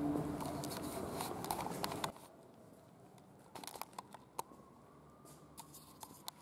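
Faint indoor room sound with a few faint steady tones that cuts off abruptly about two seconds in, then near silence broken by a few soft clicks of a handheld camera being moved.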